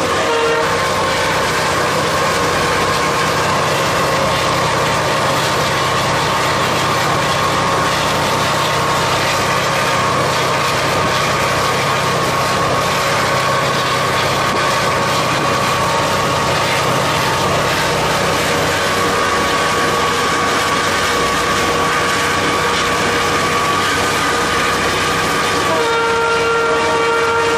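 Cab noise of an EMD WDP4B (GT46PACe) diesel-electric locomotive accelerating through about 90 km/h: the 16-cylinder 710 diesel engine running under power, with wheel-on-rail and wind noise and a faint whine that rises slightly. The locomotive horn stops about half a second in and sounds again near the end as a steady tone.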